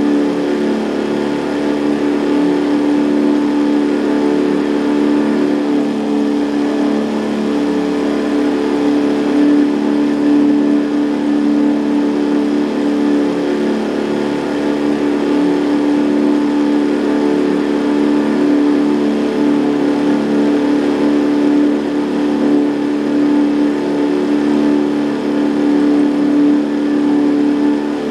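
Outboard motor of a small boat running at a steady cruising speed: a constant drone that holds one pitch throughout.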